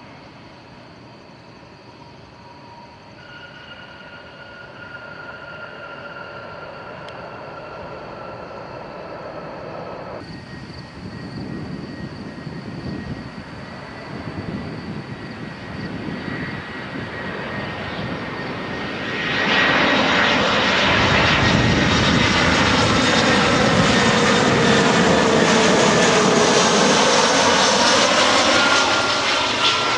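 Jet airliner on its landing approach: a faint engine whine grows louder, then about two-thirds of the way in it becomes loud engine noise with a swirling, sweeping quality as the aircraft passes close.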